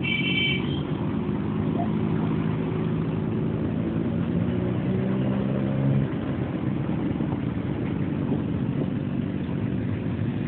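Motorcycle and scooter engines running in a slow convoy, heard from a scooter riding in it, over a steady rush of road and wind noise. A short high horn beep sounds at the very start, and a steady engine hum fades out about six seconds in.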